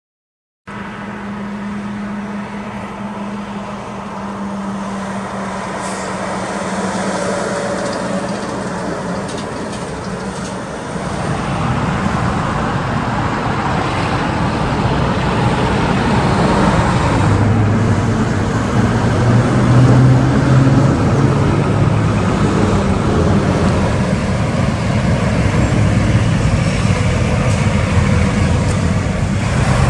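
Heavy semi trucks driving past on a road, diesel engines running steadily under tyre and traffic noise; louder from about eleven seconds in.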